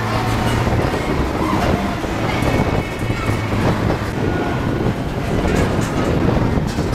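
Open-sided road-train ride carriage rattling and rumbling as it is towed along a street, over a steady low hum from the towing vehicle's engine.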